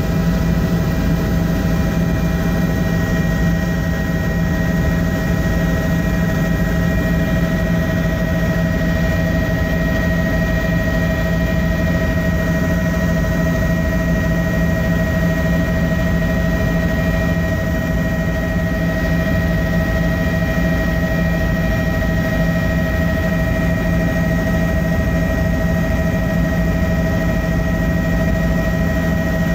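Helicopter in flight, heard from inside the cabin: the engine and rotors make a loud, steady drone with several constant whining tones above it.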